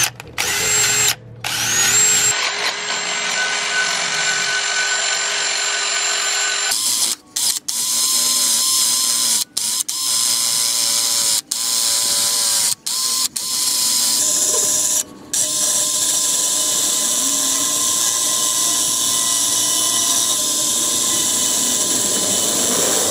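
Cordless drill spinning a wire cup brush against the aluminium barrel of a three-piece wheel, scrubbing old silicone sealant off down to bare metal. The drill runs steadily, with several brief stops and a few shifts in pitch.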